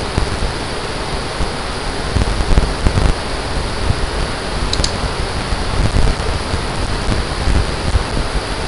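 Steady, loud rushing noise with uneven low rumbling through it and a brief faint high chirp about halfway through.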